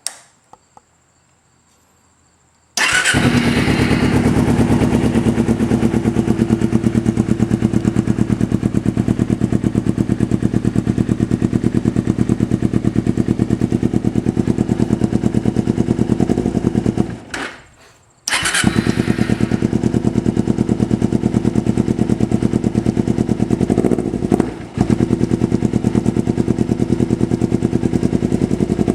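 2010 Kawasaki Ninja 250 parallel-twin with a Two Brothers aftermarket exhaust starting about three seconds in and idling with a steady, even pulse on a cold engine. A little past halfway it fades out and dies, then restarts at once and settles back into its idle.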